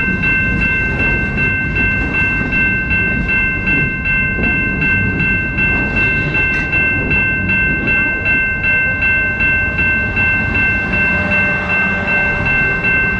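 A railway crossing bell ringing steadily at about two strokes a second, over the low rumble of a passing train.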